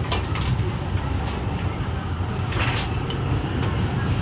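Street traffic with a steady low rumble, and a few brief hissing sounds about half a second in and again around two and a half seconds in.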